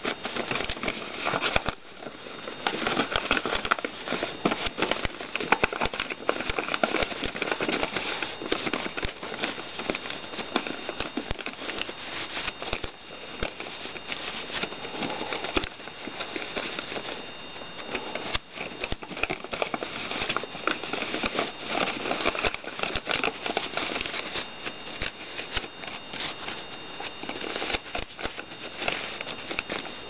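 A sheet of origami paper rustling and crackling as hands fold and crease it. The sound is a continuous run of small crinkles and taps.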